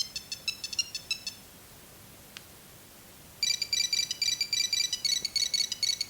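Nokia 6310 mobile phone playing its built-in monophonic ringtones as fast runs of short, high beeping notes. One tune stops about a second and a half in, a single faint click follows, and about three and a half seconds in the next ringtone starts.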